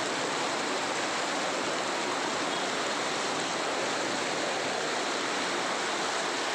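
Fast muddy floodwater rushing and churning over a road, a steady, unbroken rush of water.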